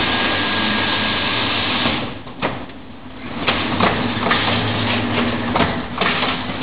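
Automatic roller-shutter assembling machine running: a steady hiss for about the first two seconds, then a low motor hum with a string of sharp clicks and knocks as the aluminium shutter slats are fed along the roller conveyor and joined.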